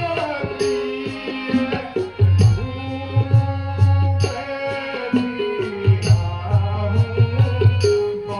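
Instrumental Indian music: a hand-drum rhythm of repeated strokes with deep bass thumps, under sustained melodic tones.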